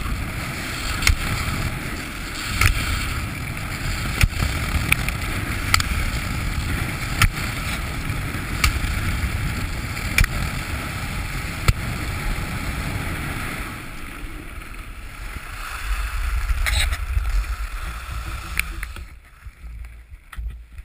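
Racing skis carving a giant slalom course on firm snow, with wind rushing on the microphone. Sharp knocks come about every one and a half seconds through the first twelve seconds or so. The sound dies down near the end.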